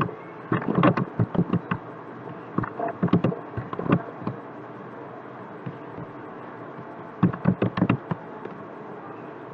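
Computer keyboard and mouse clicks: three bursts of quick key taps and clicks, about a second in, around three to four seconds in, and near the end, over a steady background hiss.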